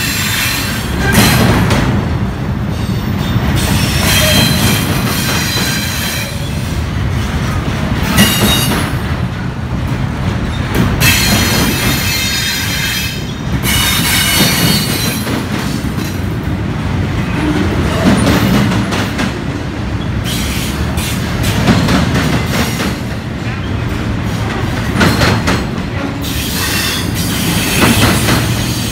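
Double-stack container train of loaded well cars rolling past close by: a steady rumble of steel wheels on rail, clatter and knocks as wheel sets pass over the joints, and a high wheel squeal that comes and goes.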